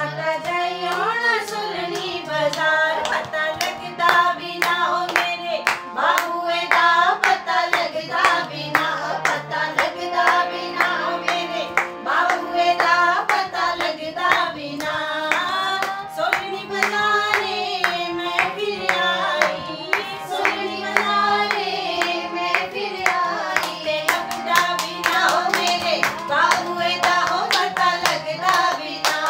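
Women singing a gidda folk song and clapping their hands in a steady beat.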